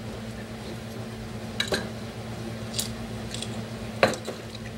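A few light clicks and taps of a spoon and containers being handled while sugar is added for a smoothie, the loudest a sharp knock near the end, over a steady low hum.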